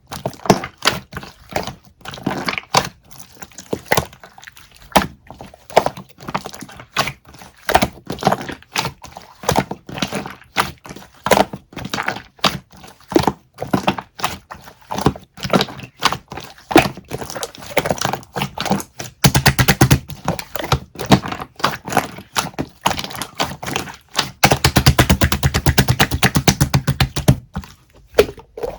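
Irregular sharp taps and knocks on a hard surface. About two-thirds of the way through come two runs of very rapid tapping, the second one longer.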